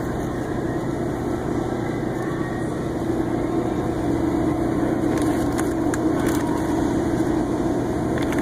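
Steady fan hum of a refrigerated display case running, with a few light clicks midway.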